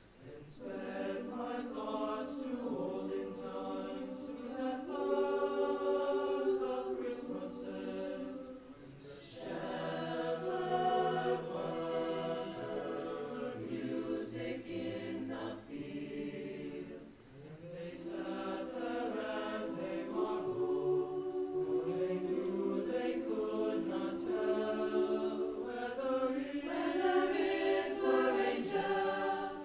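Mixed high school choir singing, with two short breaks between phrases about nine and seventeen seconds in.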